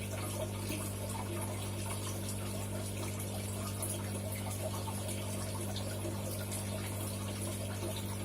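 Water running steadily in an aquarium setup, over a constant low electric hum from a pump.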